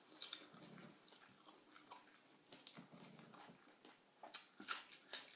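Faint chewing and smacking mouth sounds of a person eating, scattered small clicks throughout with a few louder ones near the end.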